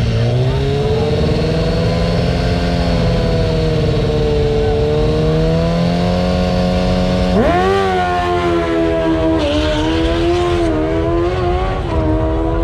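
Sport-bike engine held at steady high revs on the drag-strip start line, then launching with a sharp rise in pitch about seven seconds in. Its pitch then drops and climbs again three times as it shifts up through the gears down the track.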